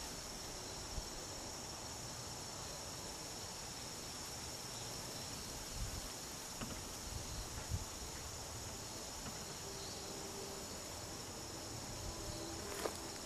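A steady, high, even chirring of autumn insects, with a few faint ticks and rustles.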